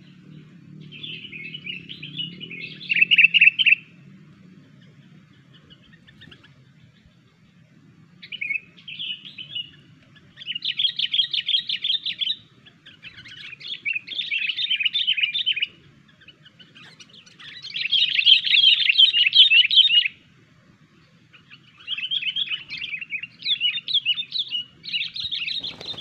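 Sooty-headed bulbul (kutilang) singing: bouts of rapid, bubbling chattering phrases, each lasting two to three seconds with short pauses between.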